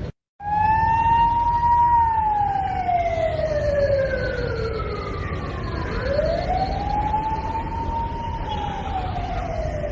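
Police siren in a slow wail, its pitch rising and falling about once every six seconds, over a steady low rumble. It starts after a brief dropout at the very beginning.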